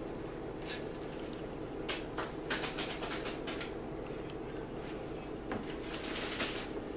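Crinkling and rustling of a bag of powdered sugar being worked open by hand, in two spells of quick crackles, over a steady low hum.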